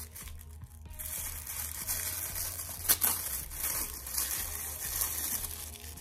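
Plastic packaging crinkling and rustling as it is handled and unwrapped, with one sharp click just before three seconds in.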